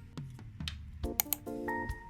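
Background music: a light instrumental track. It is sparse with a few clicks for the first second, then runs as a rhythmic pattern of short notes and clicks.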